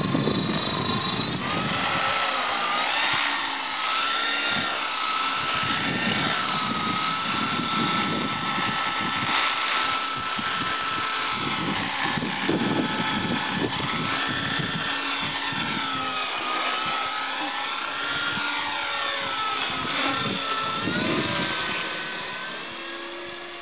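Radio-controlled model helicopter flying: a steady whine from its motor and rotor blades, rising and falling in pitch as it manoeuvres, growing fainter near the end.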